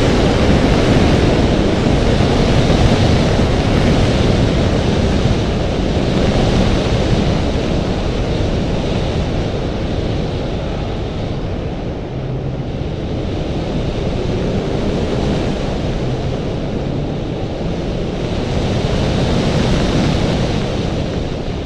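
Heavy wind rush on a hood-mounted microphone on a Porsche Cayman S driven hard through an autocross course, with the engine's note faintly rising and falling underneath as the car speeds up and slows for the cones.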